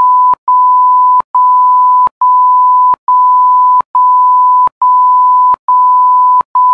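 Censor bleep: one steady pure tone repeated as a run of loud beeps, each about three-quarters of a second long with very short breaks between them, blanking out swearing.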